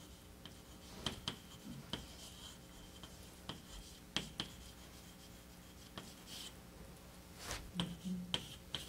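Faint handling noise: scattered small clicks, rubs and scratches of people with paper and pens, over a low steady hum. A short low vocal sound comes near the end.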